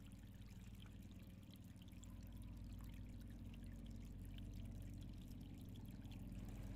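Faint, steady running water, a trickle or stream that keeps going without a break.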